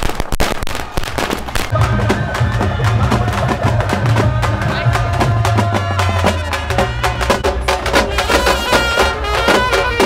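Music: a lively Marathi folk-style song with fast drumming and percussion; a deep bass line comes in about two seconds in.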